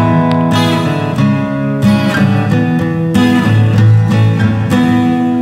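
Music: acoustic guitar strumming chords that change every second or so.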